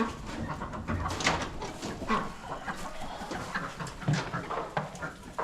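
Chickens clucking, short calls scattered throughout from several birds.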